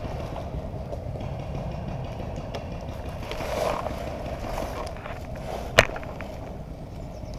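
Paintball marker being moved about behind cover, with rustling and scraping from the handling, and a single sharp paintball shot about six seconds in.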